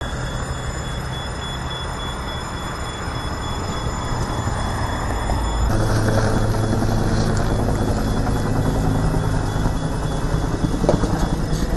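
A steady, low, engine-like rumble that gets louder about six seconds in.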